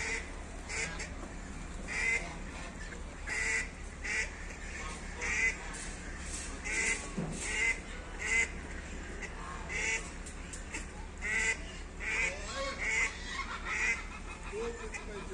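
Waterfowl calling over and over: short honking, quacking calls about once a second.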